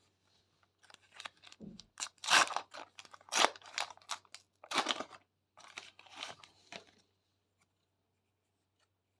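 A Match Attax trading-card packet being torn open, its wrapper crinkling and ripping in a run of sharp tears for about six seconds, then stopping.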